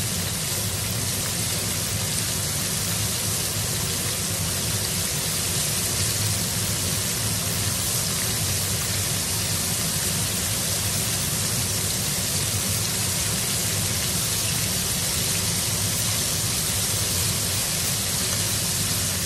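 Flour-coated chicken pieces deep-frying in a wide pan of hot oil: a steady, dense sizzle.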